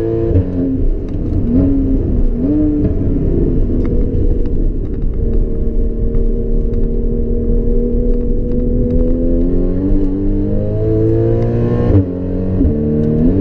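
Porsche Cayman S flat-six through a Borla exhaust, heard from inside the cabin. The revs drop off at the start and two quick throttle blips follow as it downshifts. Then the engine pulls steadily with the pitch climbing, and near the end there is a sudden drop in revs at an upshift before it climbs again.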